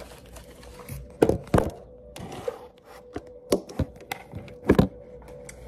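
Handling noise of a phone camera being picked up and repositioned: a few sharp knocks and thunks, the loudest about a second in and near the end, over a faint steady hum.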